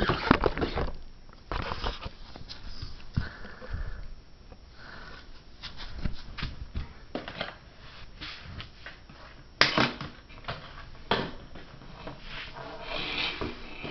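Handling noise: irregular rustling, shuffling and knocks as a person moves about on a hard floor and handles a plastic vacuum hose, with one louder knock a little under ten seconds in.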